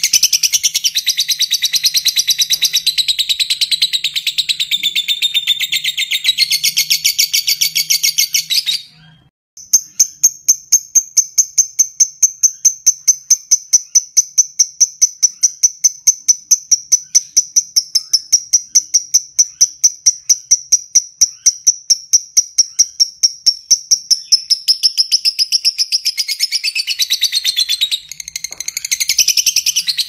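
Fischer's lovebird singing its long 'ngekek' chatter: a fast, unbroken string of sharp, shrill chirps. It breaks off briefly about nine seconds in, then runs on as an even, rapid series of notes at one pitch, and turns back into denser chattering near the end.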